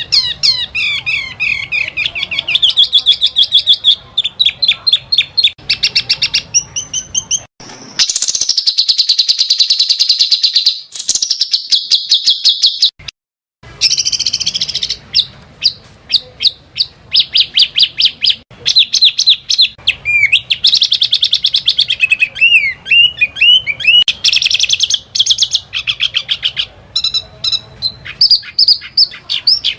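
Small songbirds giving rapid, high trills and chattering call series: the fast 'tembakan' phrases used as master recordings for competition songbirds. The segments are spliced, with abrupt cuts and two brief silences, one about seven seconds in and one about thirteen seconds in.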